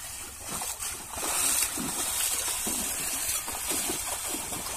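Water sloshing and splashing, with short faint calls over it.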